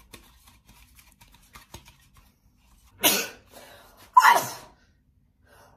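A person sneezing twice, about three seconds in and again a second later, each a short loud burst. Before that, only faint light clicks and rustles of handling.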